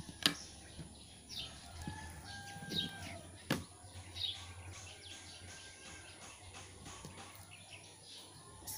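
Outdoor bird sounds: small birds chirping over and over in short falling notes, with a rooster crowing faintly. Two sharp clicks stand out, about a quarter second in and about three and a half seconds in.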